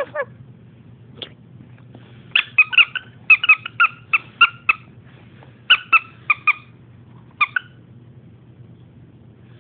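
A dog's plush squeaky toy squeaked over and over: short, high squeaks, mostly in pairs, in several quick runs that stop about two seconds before the end.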